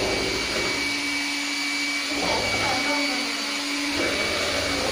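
Electric hand mixer running steadily, its beaters whisking batter in a plastic bowl: an even motor whine with no change in speed.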